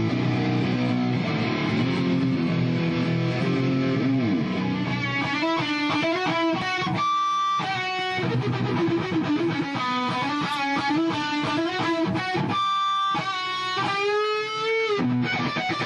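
Electric guitar: dense low chords for the first five seconds or so, then a lead line of single held notes with vibrato and string bends.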